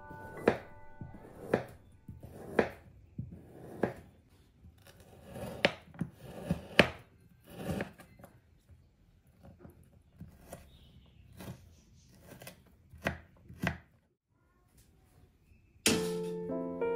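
Kitchen knife slicing a large sausage on a bamboo cutting board: a sharp knock of the blade on the board about once a second, stopping shortly before the end. Piano music comes in near the end.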